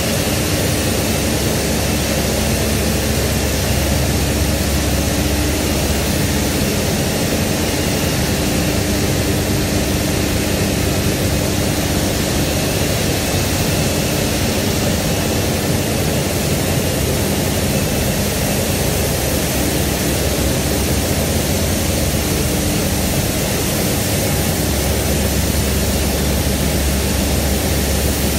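Steady, loud running noise of a meltblown nonwoven fabric production line: an even rushing roar of machinery and air blowers, with a low hum and a few faint steady tones underneath.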